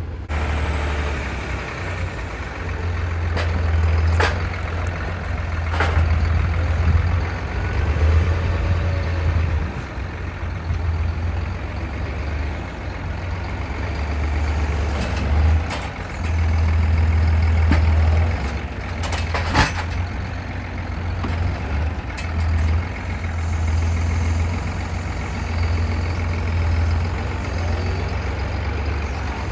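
A heavy vehicle engine running with a steady low hum that swells and eases, with a few sharp knocks along the way.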